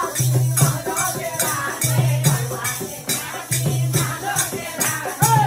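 Group of women singing a sohar folk song, accompanied by a steady rhythm of shaken metal jingles on a handheld clapper and hand clapping.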